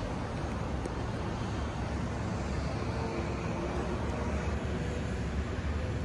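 Wind buffeting the microphone over a steady wash of distant traffic and city noise.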